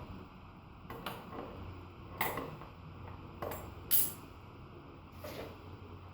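Adjustable wrench clinking against the motorcycle's front axle bolt and hub as the bolt is worked loose: a handful of sharp metallic clinks at irregular intervals, the loudest about four seconds in.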